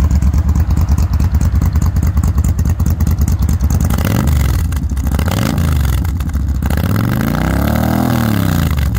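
Yamaha Stryker's V-twin engine idling with an even pulsing beat. In the second half it is revved and let back down a few times, twice briefly and then once for longer, rising to a peak and falling again near the end.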